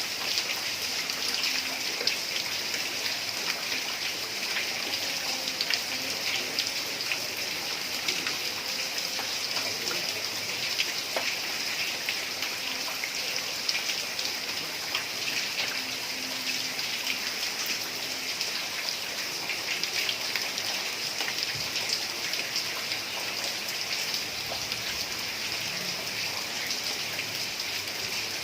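Heavy rain falling steadily on a tiled roof: a dense, even hiss full of fine drop ticks.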